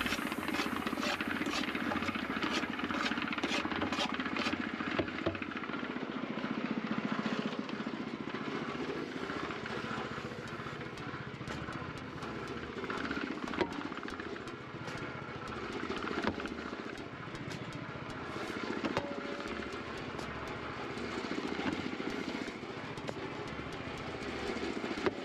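Cement mixer running steadily, its low sound swelling and fading every couple of seconds as the drum turns. There is regular clicking about twice a second for the first few seconds, and a shovel scrapes into a sand pile.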